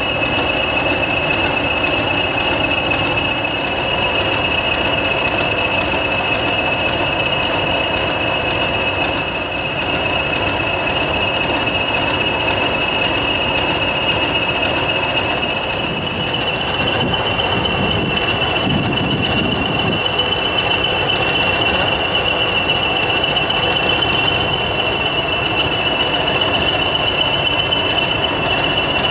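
Two Class 20 diesel locomotives running at the head of a train, with a steady high-pitched whistle over the engine sound. The whistle steps up slightly in pitch about halfway through, and the low end of the engine sound swells briefly soon after, as the train moves off.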